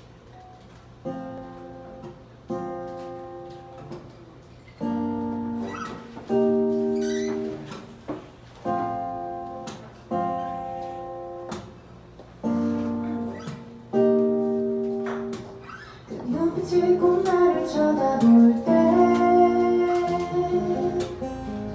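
Acoustic guitar plays a slow intro of chords, each left to ring and fade, about one every second and a half. About sixteen seconds in a woman starts singing over the guitar.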